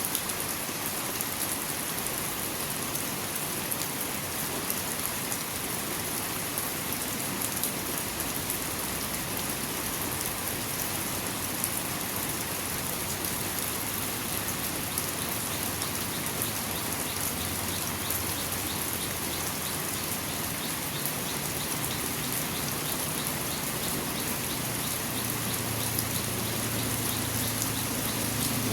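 Steady rain falling, with individual drops ticking on surfaces. A low rumble builds and grows louder near the end.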